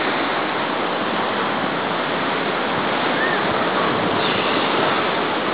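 Steady rush of storm surf, waves breaking and churning in rough sea.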